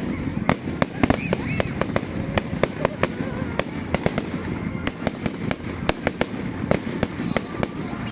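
Fireworks crackling and popping: many sharp, irregular cracks, several a second, over a steady low background murmur.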